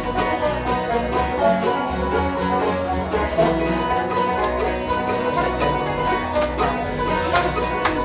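Live band playing the instrumental introduction to a country gospel song: quick plucked-string notes over a pulsing bass beat.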